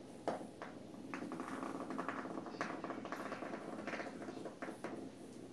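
HEXBUG Nano vibrating robot bug buzzing and rattling over a hard vinyl floor, with a string of sharp taps and clicks as a cat bats at it.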